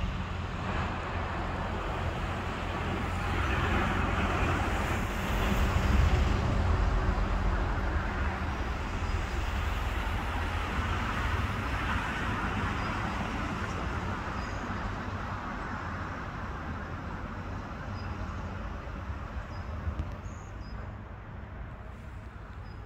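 Road traffic rumble from passing vehicles, swelling to its loudest about six seconds in and then slowly fading.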